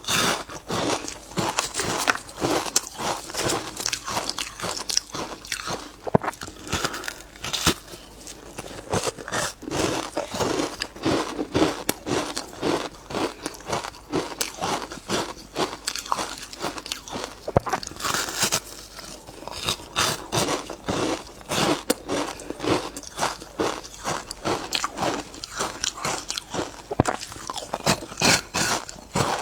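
Ice being bitten and crunched between the teeth close to the microphone, a rapid run of sharp crunches and crackles that keeps on with only short pauses.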